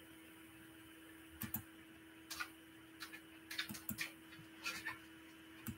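Scattered light clicks and taps in small irregular clusters, over a faint steady hum.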